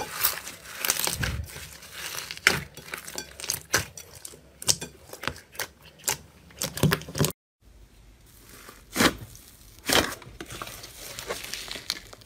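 Slime being squeezed, poked and pressed close to the microphone, giving a run of crunchy crackles and pops. The sound drops out completely for a moment a little past halfway, then more crackling handling follows.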